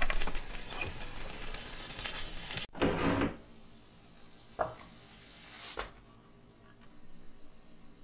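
Egg sizzling in a tamagoyaki pan, with light clicks of wooden chopsticks as the omelette is rolled. Then a thump as the rolled omelette is set on a wooden cutting board with a turner, followed by two light knocks on the board.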